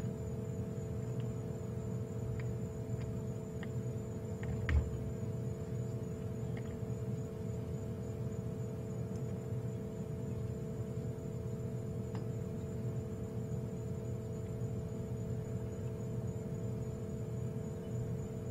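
Steady electrical hum of a few held tones over a low rumble, with a few faint clicks and one thump about five seconds in.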